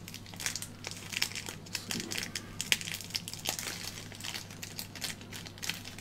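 Small plastic packet crinkling and crackling as it is handled and pulled open by hand to get a small adapter out: an irregular run of crackles and light clicks.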